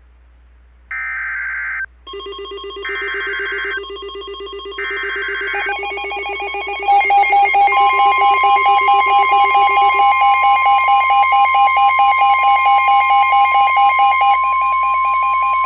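NOAA Weather Radio Emergency Alert System activation: three SAME digital header bursts, each a harsh data screech of about a second with a second's gap, followed by the steady 1050 Hz warning alarm tone starting about eight seconds in, signalling a warning about to be read. A pulsing electronic alarm beeping runs underneath from about two seconds in and grows loud around the seventh second.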